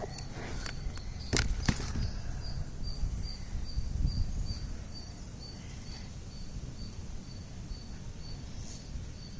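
Outdoor background noise with a low rumble, over which a short high chirp repeats evenly, about three times a second. Two sharp clicks come about a second and a half in.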